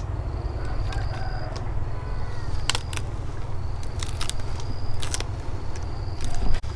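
An insect trilling in repeated bouts of about a second each, with several sharp knocks scattered through, over a steady low rumble.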